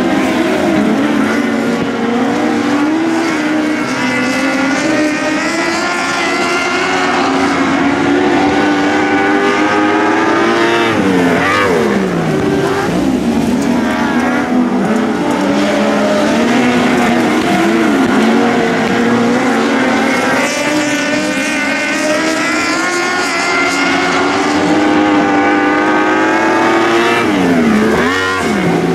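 Several compact speedcars racing on a dirt track, their engines revving hard together through the lap. The engines' pitch swoops down and back up as cars go past, about eleven seconds in and again near the end.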